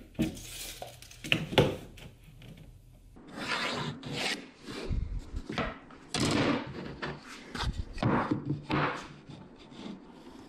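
Pencil scratching marks onto plywood, then wood pieces and a plastic speed square sliding and rubbing across a plywood workbench in repeated strokes, with a couple of dull knocks as pieces are set down.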